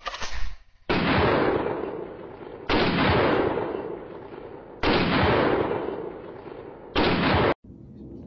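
Four loud booms about two seconds apart, each hitting suddenly and fading away over a second or so; the last one is cut off short.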